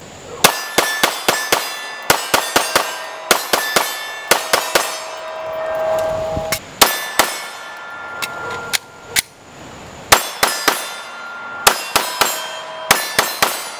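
Glock Gen 5 9mm pistol fired in quick strings of several shots each, with short pauses between strings, and a metallic ringing clang lingering after the shots.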